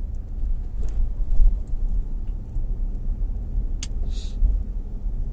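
Steady low road and engine rumble heard inside a moving car's cabin, with a couple of brief clicks and a short hiss just after four seconds.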